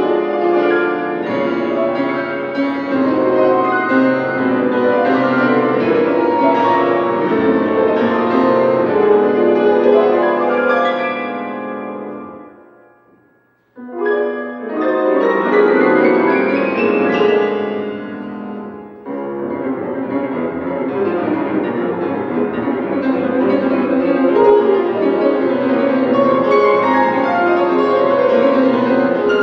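Solo grand piano playing fast, dense classical music. About twelve seconds in, the sound dies away to a moment of silence, and the playing starts again suddenly a second later.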